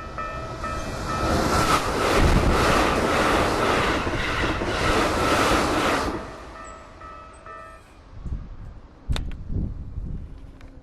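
A Keikyu train runs through the level crossing, loudest from about one to six seconds in, over the crossing's warning bell ringing in even, repeated strokes. The bell stops about eight seconds in. A sharp knock follows shortly after.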